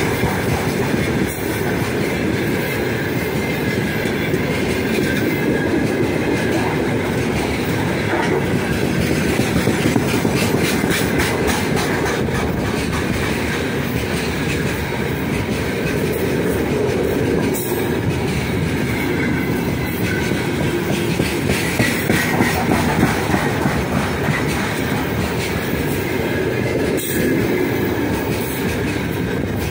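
Heavy freight train of open gondola wagons rolling past close by: a steady rumble of steel wheels on rail with a repeating clatter as the wheelsets pass over the rail joints.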